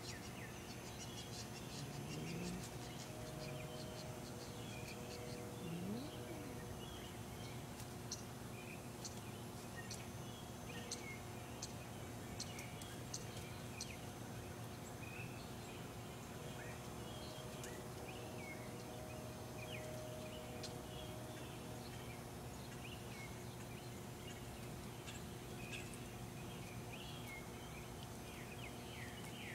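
Faint outdoor ambience: scattered short bird chirps throughout over a steady low hum, with two brief rising sounds in the first few seconds.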